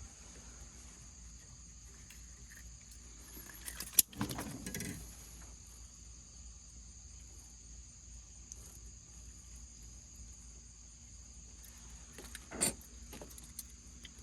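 A steady high-pitched drone of insects, crickets or similar. There is a sharp knock about four seconds in, followed by a second of handling noise, and another knock near the end.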